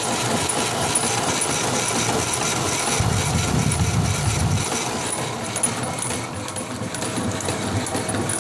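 1920s Racine power hacksaw running, its blade reciprocating through a steel bar with a steady, rhythmic mechanical clatter. A low rumble swells briefly about three seconds in.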